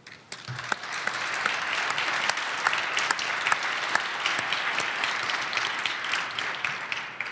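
Audience applauding. It builds up over the first second and dies down near the end.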